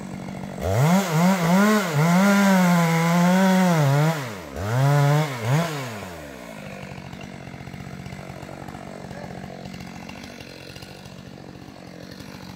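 Two-stroke chainsaw running at high revs, its pitch wavering up and down and dipping twice. About six seconds in it drops back to a quieter, steady idle.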